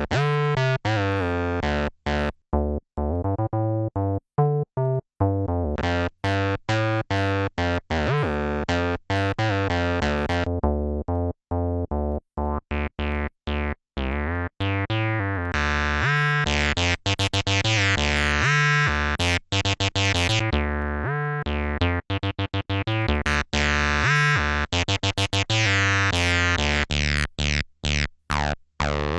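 Behringer TD-3 analog bass synth playing a fast, staccato sequenced acid bassline. Its resonant filter is swept open, brightening the notes over the middle of the passage and again later on, then closed down again.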